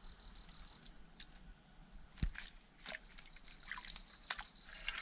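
Hands sloshing and splashing lightly in shallow stream water among submerged dry grass and twigs, with scattered drips and small clicks, and one low thump about two seconds in.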